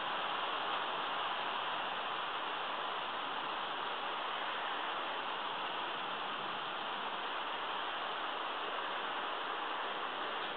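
Steady rain falling in a thunderstorm, an even hiss with no thunder.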